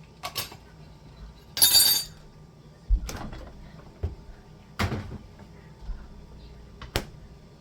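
Kitchen clatter while cooking: a handful of sharp knocks spread over several seconds, with one louder, ringing clatter about a second and a half in.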